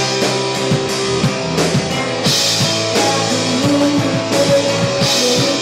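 Rock band playing live: electric guitars over a drum kit keeping a steady beat, with a cymbal crash at the start, again a little over two seconds in and near the end.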